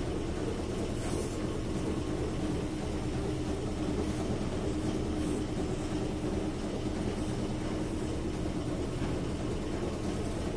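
A steady mechanical hum over a constant low rumble, holding level throughout.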